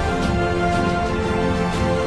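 Background music laid over the video, with held tones and a light steady beat.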